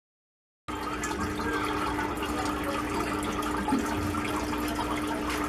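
Silence, then from under a second in, aquarium water bubbling and splashing steadily at the surface, with a steady hum running under it.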